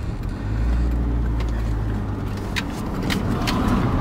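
A car driving, heard from inside the cabin: a steady low rumble of engine and road noise, with a few sharp clicks in the second half.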